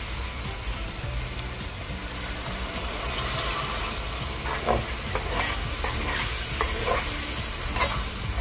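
Onion-tomato masala sizzling in oil in a metal kadai as it is fried down. From about halfway in, a metal spoon scrapes and knocks against the pan as the masala is stirred.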